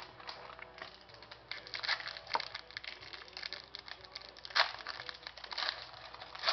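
Hands crinkling a foil hockey-card pack wrapper and handling cards, with irregular paper and foil rustling and a few sharper crackles.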